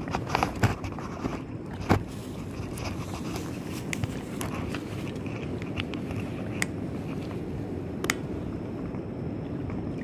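Wading through shallow river water: steady sloshing with a few sharp splashes and knocks, the loudest about half a second and two seconds in, then scattered light ticks.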